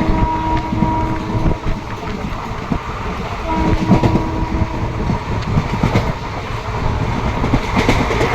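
A train running with a steady low rumble and irregular clatter of the wheels over the rails. Its horn sounds twice: the first blast is already sounding and stops about a second and a half in, and the second starts about three and a half seconds in and lasts about a second and a half.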